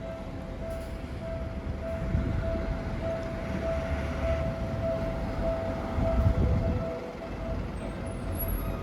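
Japanese level-crossing warning bell ringing its steady kan-kan, a little under two strikes a second, while a Seibu Shinjuku Line train rumbles past on the rails.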